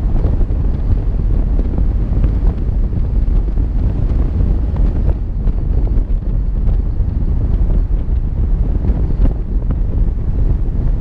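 Wind buffeting the microphone of a camera on a moving vehicle, a steady loud low rumble mixed with road noise, with faint scattered ticks.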